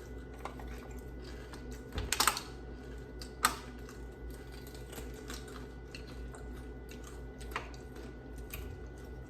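Someone crunching and chewing Takis rolled tortilla chips: a cluster of crisp crunches about two seconds in, another sharp crunch about a second later, and scattered small crackles over a low steady hum.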